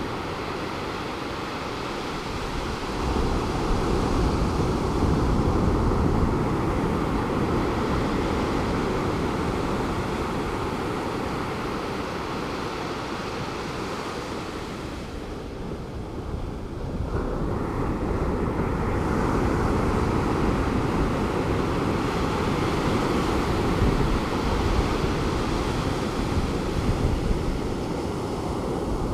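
Pacific Ocean surf breaking on a beach, a steady wash that swells, eases into a lull a little past the middle, then builds again.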